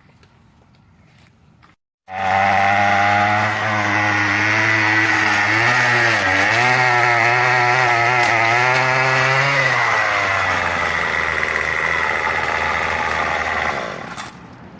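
Gas weed eater (string trimmer) engine running at speed with zip ties fitted in place of trimmer line. Its pitch wavers and dips around the middle, settles lower, then the engine cuts out about a second before the end. The zip ties turn out not to work as cutting line.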